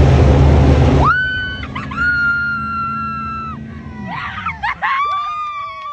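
Loud music for about a second, then cuts out. A person screams one long high note for about two and a half seconds, followed by shorter yells that drop in pitch.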